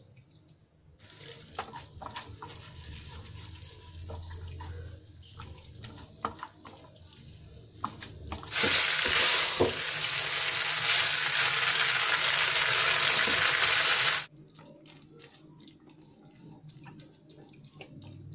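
Spaghetti tossed in a pan, with scattered clinks and scrapes of the serving utensil against the pan. About eight seconds in, a loud, steady rushing hiss starts suddenly and cuts off just as suddenly some six seconds later.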